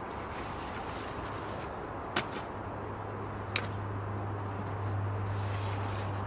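Two sharp snaps, about a second and a half apart, as a knife cuts through rhubarb stalks, over a steady low hum.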